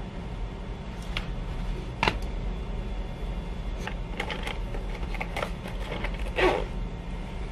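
Small clicks and ticks of makeup items being handled and packed into a fabric cosmetic pouch, with a louder short rustle near the end, over a steady low hum.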